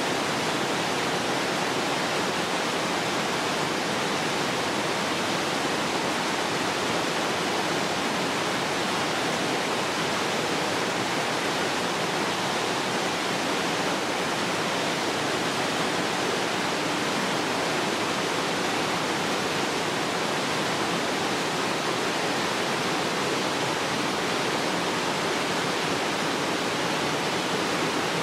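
Steady rush of flowing river water, an even noise with no breaks or changes in level.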